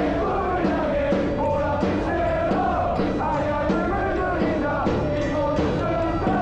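Football supporters singing a chant together over a steady drumbeat.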